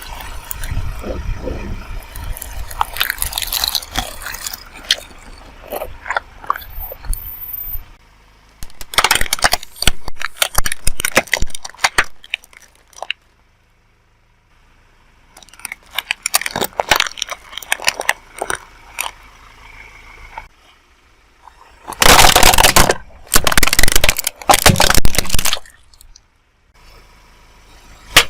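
Objects being crushed under a car tyre: dense crunching and cracking in several separate clips, with the low rumble of the rolling car under the first one. The loudest crunches come in three bursts near the end.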